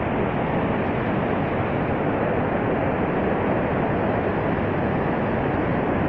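Steady roar of the Horseshoe Falls at Niagara, an even, unbroken rushing noise of falling and churning water.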